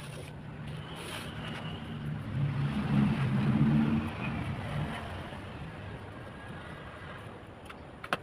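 A motor vehicle's engine passes, swelling to its loudest about three to four seconds in and then fading, over faint scraping of wet cement mortar being spread in a mould. There are a couple of sharp taps near the end.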